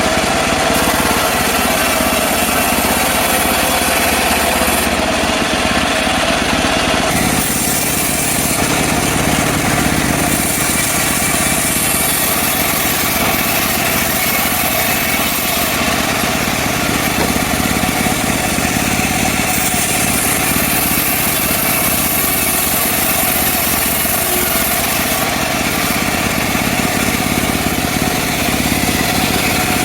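The small engine of a portable bandsaw sawmill running steadily and loudly, its tone shifting slightly about seven seconds in.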